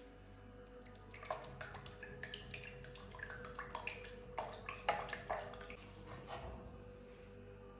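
A run of light clinks, knocks and scrapes as a steel spoon works against a plastic blender jar, about a second in through the middle, loudest near the middle.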